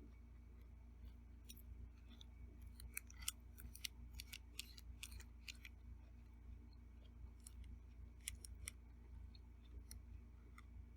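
Eating sounds: a run of small, sharp clicks and ticks, thick from about two to six seconds in and again around eight seconds, over a low steady hum.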